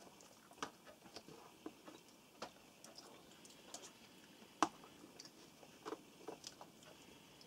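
Faint, scattered clicks and taps of cutlery on plates as fried crucian carp is picked apart and eaten, with a sharper clink about four and a half seconds in.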